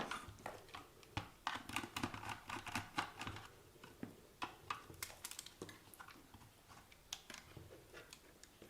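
Close-up clicks, taps and scratching of small plastic parts being handled, as the antenna wire is worked loose inside an opened RC car transmitter. The clicks come thick and fast for the first few seconds, then thin out to scattered ticks.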